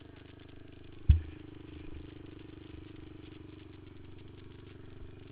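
Suzuki LT-Z400 quad's single-cylinder four-stroke engine idling steadily, with a single sharp thump about a second in.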